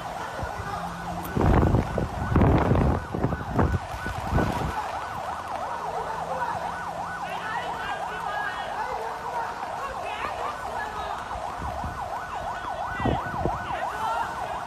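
An emergency vehicle siren sounding a fast, repeating up-and-down yelp. Several loud bumps come in the first few seconds, and another comes near the end.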